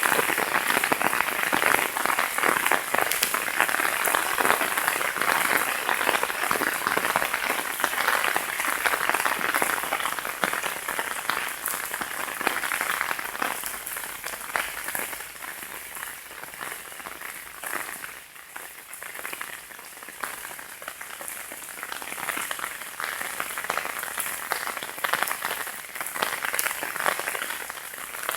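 Heavy rain in a downpour: a dense patter of countless drops, easing somewhat about halfway through and then picking up a little again.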